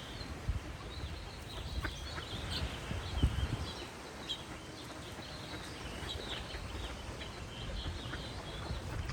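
Small birds singing in short high chirps over a low outdoor rumble, with a louder low knock or rustle about three seconds in.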